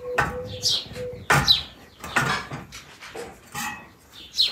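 Short metal clinks and knocks as a samovar's lid and top are lifted and handled, with birds chirping now and then.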